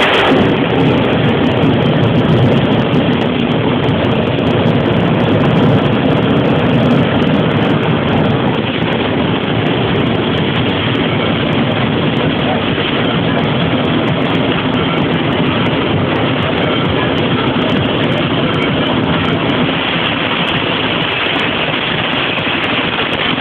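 Fire Force 3 jet car's jet engine running flat out, a loud, steady rush that eases slightly toward the end.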